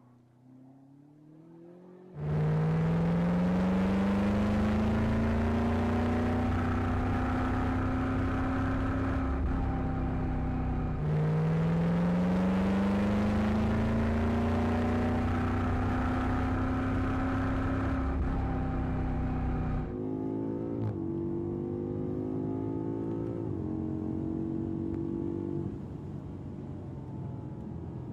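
BMW M5 F90's twin-turbo V8 accelerating hard. The engine note comes in loud about two seconds in and climbs steadily in pitch. It drops back at an upshift about eleven seconds in and climbs again. At a further shift near twenty seconds it runs quieter, still rising, and eases off further near the end.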